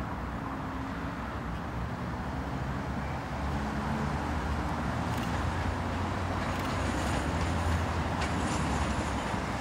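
Class 56 diesel locomotive approaching slowly, its engine giving a low steady drone that grows louder from about three seconds in. A few light clicks from the wheels crossing pointwork come in the second half.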